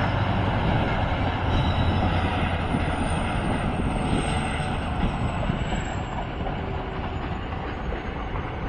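The Karnataka Superfast Express, a passenger train, running through without stopping, its coaches rolling over the rails in a steady rumble that slowly fades as the train draws away.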